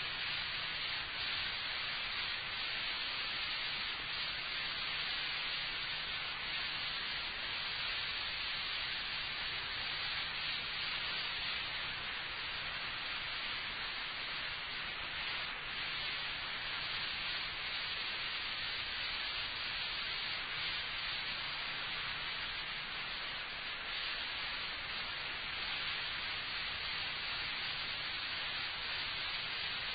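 Steady recording hiss with a faint low hum underneath and no speech: the blank run of an old lecture recording.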